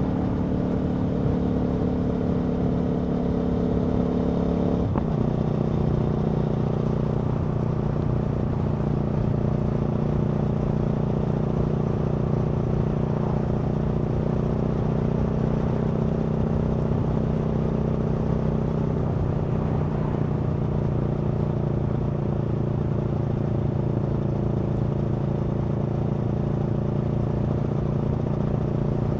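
Aprilia Tuono V4 motorcycle's V4 engine pulling at a steady cruise, with road and wind noise. About five seconds in a brief click comes as it shifts up a gear, and the engine note drops and then holds steady.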